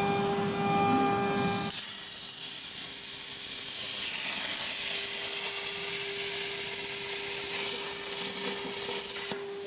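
Plasma torch of a Blue Elephant ELE1530 CNC plasma cutting machine cutting steel sheet: the arc and its gas jet strike about a second and a half in, then give a loud, steady hiss that cuts off suddenly near the end, over a steady machine hum.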